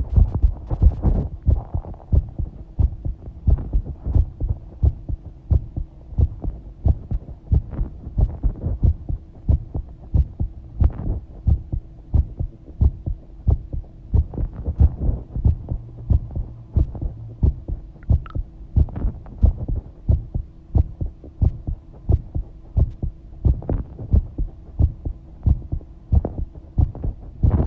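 Human heartbeat recorded close up: a steady, even run of low thumps, with a faint steady hum underneath.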